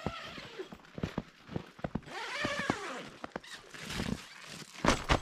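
Tent door zipper being pulled along in strokes, its pitch rising and falling with the pull, among scattered clicks and fabric rustling; a louder rustle of the tent fabric comes near the end.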